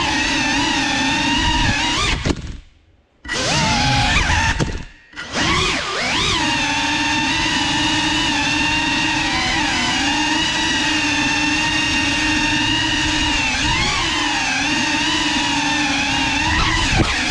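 Brushless motors and props of a GEPRC CineLog 35 cinewhoop drone whining in flight, the pitch rising and falling with the throttle. The whine cuts out briefly twice, about two and five seconds in, as the throttle is chopped, then spins back up.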